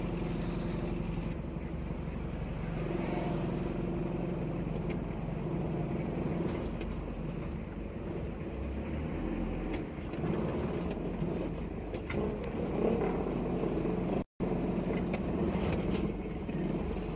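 Mitsubishi L300 van engine and road noise heard from inside the cab while driving, a steady drone. It cuts out for an instant about 14 seconds in.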